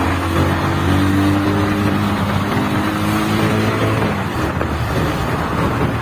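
Bajaj Pulsar 220F's single-cylinder engine running while the bike rides along, a steady low engine note. About four seconds in the note fades into rushing wind and road noise.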